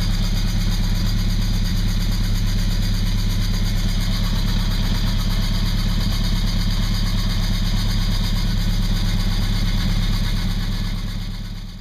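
Chevrolet V8 idling steadily, then fading out near the end.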